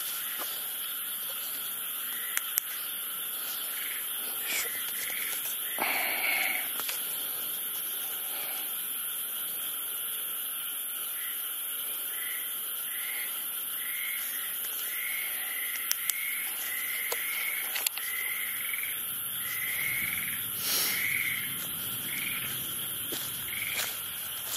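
An animal calling at night: short high chirps over a steady hiss, sparse at first, then more than one a second through the second half. There are a few faint clicks.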